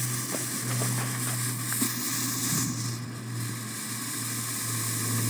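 A green ball smoke bomb burning inside a hollowed pumpkin, giving off a steady hiss as it pours out smoke, over a steady low hum.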